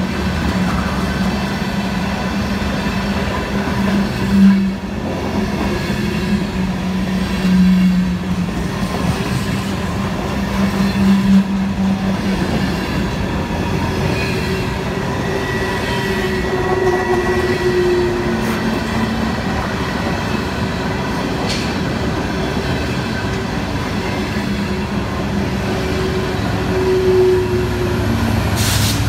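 Empty Norfolk Southern freight flatcars rolling past: a steady rumble and rattle of steel wheels on the rail, with a few thin squealing tones from the wheels.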